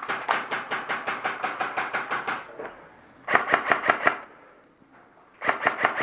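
M4-style airsoft rifle firing on full auto in three bursts, a rapid, even clatter of about ten shots a second: a long burst of about two and a half seconds, then two short ones.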